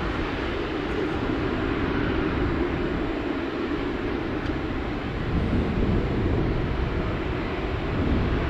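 Four Rolls-Royce Trent 970 turbofans of an Airbus A380-841 at takeoff thrust: a steady, deep jet roar that grows a little louder about five seconds in.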